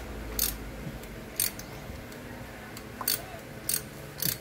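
Sharp metallic clicks from hand tools, about six of them at uneven intervals, as spark plugs are being worked on.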